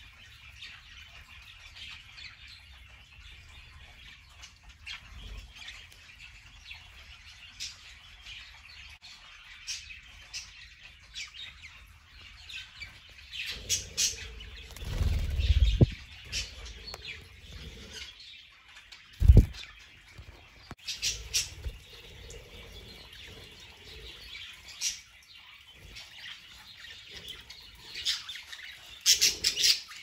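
Budgerigars chirping in short, scattered calls, with a few dull low thumps and rustles in the middle.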